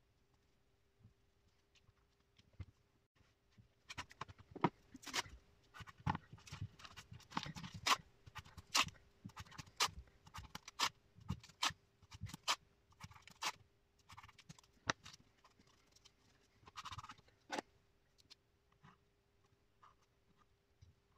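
Hands handling a masking-taped board and a wound copper coil on a tabletop: irregular knocks, taps and short scrapes starting about four seconds in and thinning out near the end. A faint steady hum runs underneath.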